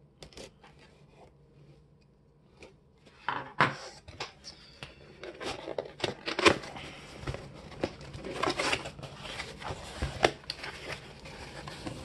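Scissors slitting the packing tape on a cardboard shipping box, then the cardboard flaps being pulled open and handled. It is quiet at first, then about three seconds in comes a busy run of sharp scrapes, clicks and rustles.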